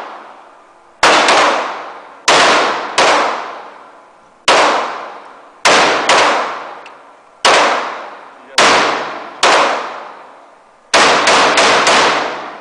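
AR-style rifle fired repeatedly: loud single shots spaced about a second apart, then a quick string of about five near the end. Each shot rings and echoes off the walls of the indoor range.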